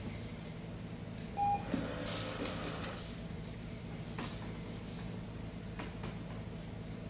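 Treat & Train remote food dispenser giving a single short beep about a second and a half in, then whirring and rattling for about a second as it releases food.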